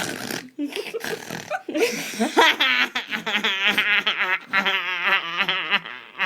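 A person laughing in a high, rapidly wavering voice, several long runs of it in the second half.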